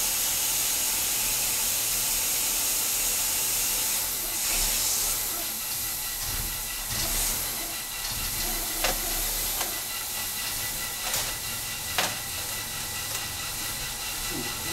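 Steady hiss, with a few light clicks in the second half as stripped copper wire is twisted and handled on the spark plugs.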